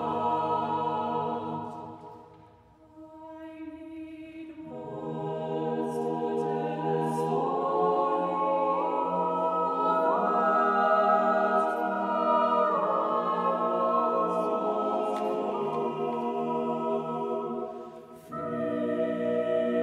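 Mixed chamber choir singing slow, sustained chords in a contemporary choral piece. About two seconds in the sound fades almost away. The voices then enter again and the chord swells, stepping up in pitch around the middle. Near the end it drops off briefly and a new chord comes in.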